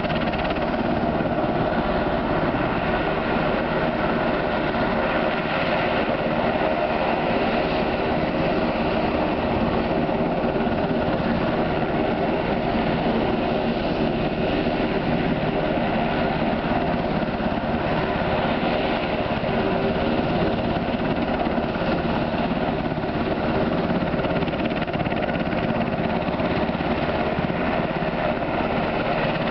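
UH-60 Black Hawk helicopter running on the ground: a steady engine and rotor noise with a constant whine in it.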